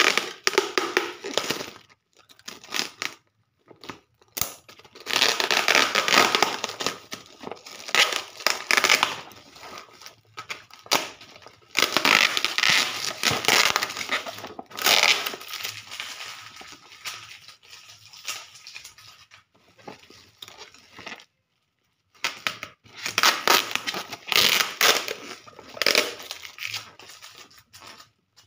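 Black bubble-wrap packaging and clear plastic tape crinkling and rustling as the parcel is handled, with tape being pulled and torn off in irregular bursts broken by short pauses.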